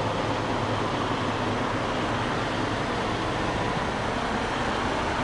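Steady drone of a 2020 Volvo VNL 860 semi truck: a low, even engine hum under a constant wash of noise.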